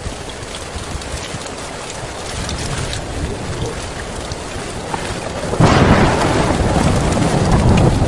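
Heavy, steady rain. About two-thirds of the way through, a loud thunderclap breaks in suddenly and keeps rumbling under the downpour.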